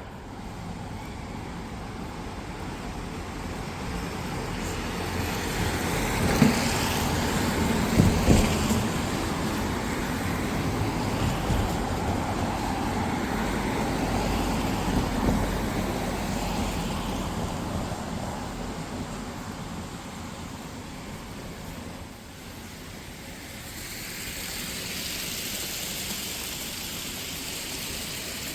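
Road traffic on a rain-wet city street: a vehicle's engine and tyre noise builds over several seconds, holds, and fades away, with a couple of sharp knocks partway through. Near the end a steady hiss takes over.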